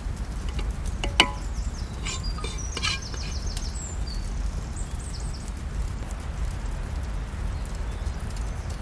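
Open-air ambience with a steady low rumble, one sharp clink about a second in, and a small bird chirping in quick high trills a couple of seconds in.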